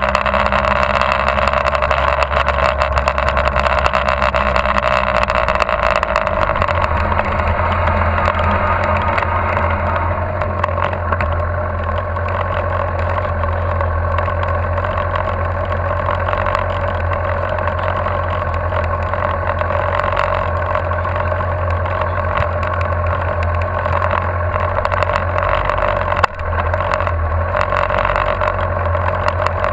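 Motorcycle engine heard from a camera mounted on the bike, running with wind noise while riding, then slowing and idling steadily once the bike stops about ten seconds in.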